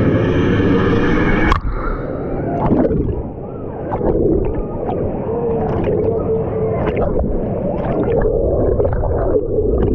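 Churning white water of a water-park wave river rushing around a waterproof camera held at the surface. About a second and a half in the camera goes under and the sound turns muffled and gurgling, broken by splashes as it bobs back up through the waves.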